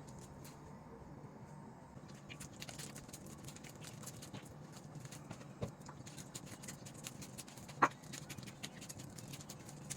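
Faint, irregular clicking and light tapping, with two louder knocks about halfway and near the end, over a low steady background hum.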